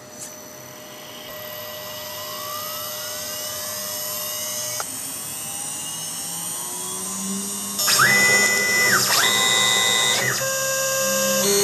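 Quick CNC K6100 router's spindle winding up toward about 12,000 RPM on its variable frequency drive, a rising whine. About eight seconds in, the axis stepper motors whine through two fast moves, each ramping up to a steady pitch and back down. These are followed by a run of shorter moves at stepping pitches as the program starts cutting.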